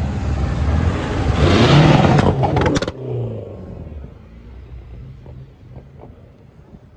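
A car accelerating hard past, its engine and exhaust growing loud and peaking about two seconds in, with a few sharp cracks just before it cuts away. A quieter engine is left running low after that.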